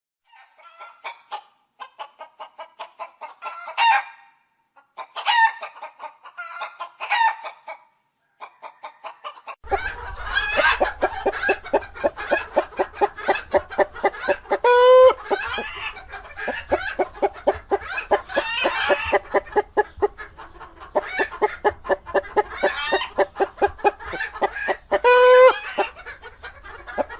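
Chickens clucking in quick rhythmic runs, broken by louder cackling calls. From about ten seconds in, a flock clucks and calls over a low hum, with two short, loud squawks.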